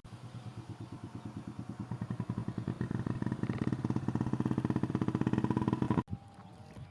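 Motorcycle engine running with a quick, even pulsing beat that grows louder and a little faster, then stops abruptly about six seconds in.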